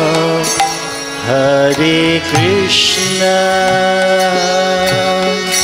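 Kirtan music: a harmonium holding sustained chords, with strokes of a mridanga drum and chanting voices, the pitch of the voices bending in the first half.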